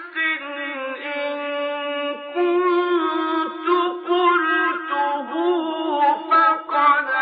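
A male Quran reciter's solo voice in melodic tajweed style, drawing out long ornamented notes in a high register, with short breaks between phrases. It has the narrow, dull sound of an old recording.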